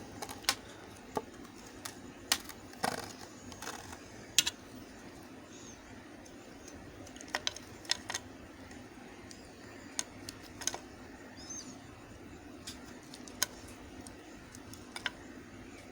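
Bar of soap being cut: crisp, irregular clicks and cracks, about fifteen scattered through, over a steady low hum.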